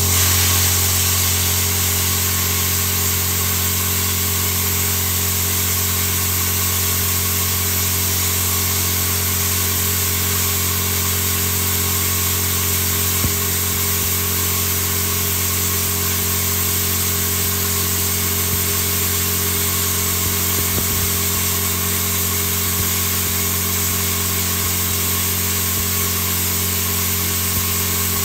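Ideal Praktik 40 air plasma cutter cutting through 10 mm thick steel flat bar: the arc and air jet make a steady hiss over an even low hum, without a break.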